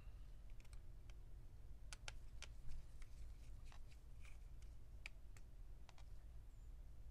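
Faint scattered small clicks and taps of a precision screwdriver and gloved hands working the screws on a laptop motherboard, over a low steady hum.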